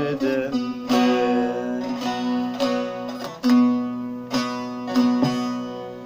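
Bağlama (saz) played solo: a handful of sharp strummed strokes over a steady drone note, each left to ring, closing out the tune. The last strokes fade away near the end.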